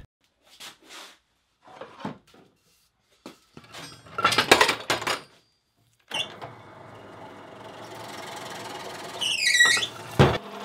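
A few short, separate sounds with silence between them, then a drill press motor running steadily from about six seconds in. Near the end a wavering squeal rises and falls over the hum, followed by one sharp knock.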